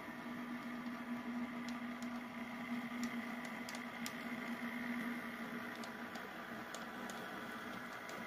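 HO scale model train running: a small diesel switcher locomotive pulling a boxcar and covered hopper gives a steady hum over a low rumble of wheels on track, with several light clicks scattered through.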